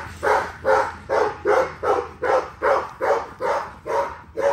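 A dog barking over and over in a steady rhythm, about two and a half barks a second, growing slightly fainter towards the end.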